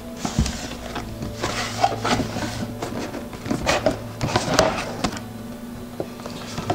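Cardboard lid of a retail box being lifted and slid off the box, cardboard rubbing and scraping against cardboard in a run of short scrapes.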